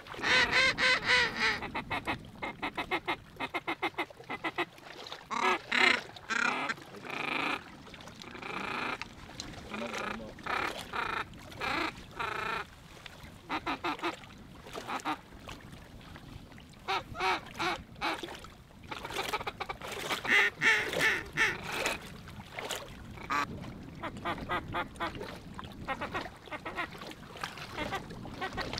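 Waterfowl calling: runs of quick, honking calls that come in loud bursts, the loudest right at the start and again about twenty seconds in, with quieter calling in between.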